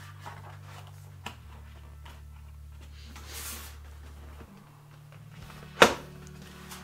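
Cardboard packaging being handled and opened: a click, a short scraping rustle about halfway through, and a sharp knock near the end, the loudest sound.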